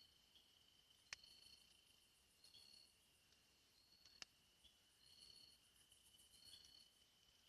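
Faint chorus of insects chirping: a steady high trill with a short chirp repeating about once a second. Two sharp clicks come about one and four seconds in.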